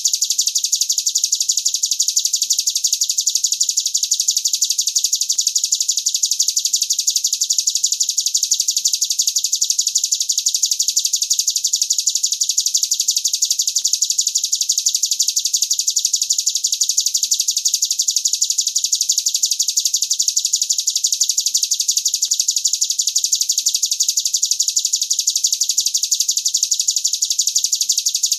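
Recorded songbird song for bird-song tutoring: a single long, unbroken, very fast high trill of rapidly repeated notes at a steady level.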